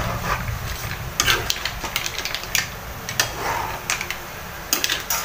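Metal spoon stirring mussels and octopus in an aluminium wok, scraping the pan and clinking against the mussel shells in irregular clicks.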